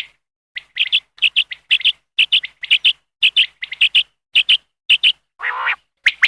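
Common quail calling: quick groups of two or three short, high chirping notes, repeated about twice a second, with one longer, lower, coarser call near the end.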